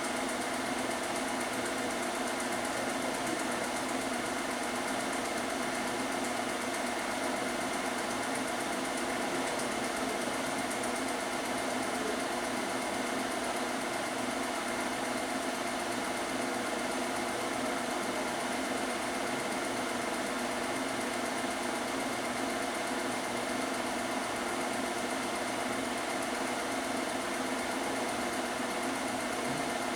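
Steady mechanical whirr and hum of a small running machine.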